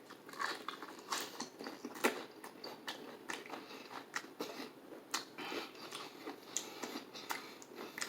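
A person chewing crispy KFC fried chicken dunked in cheese sauce, close to the microphone, with irregular crunches and mouth sounds.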